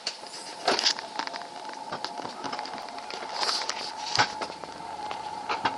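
Alpine coaster sled running down its steel tube rails: a steady whine from the wheels on the track, with sharp clicks and knocks at intervals and a hiss of rushing air.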